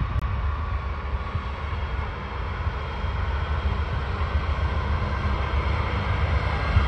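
Norfolk Southern diesel freight locomotive approaching: a steady deep engine rumble with a hiss of wheels and track above it, slowly growing louder.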